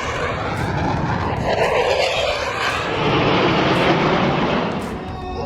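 Airplane engine noise as an aircraft flies past, a loud rush whose pitch shifts slowly and eases off a little near the end.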